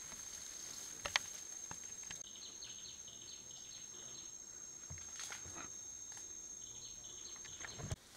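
Bamboo-forest ambience: a steady high insect drone, with runs of quick repeated chirps twice. A few sharp clicks break in, the loudest about a second in, and the sound changes abruptly near the end.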